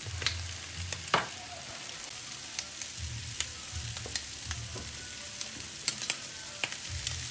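Spaghetti in thick tomato sauce simmering on low heat in a pan on a gas hob: a steady hiss with scattered sharp pops from the bubbling sauce. Partway through, a glass lid is set on the pan.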